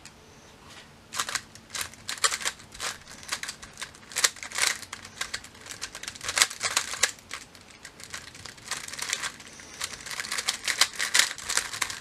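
GAN 356 X 3x3 speed cube being turned rapidly during a timed solve, its plastic layers clicking and clacking in fast irregular runs that begin about a second in.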